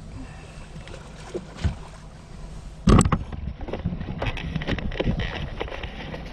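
Knocks and rattles on a small fishing boat as people move about at the rail and jostle the camera, over a steady low rumble. One loud knock comes about three seconds in, followed by a busy run of smaller knocks and rattles.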